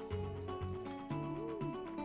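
Online slot game music: bright sustained notes over a rhythmic bass line, with a short swooping sound effect about a second and a half in as symbols drop into the reels.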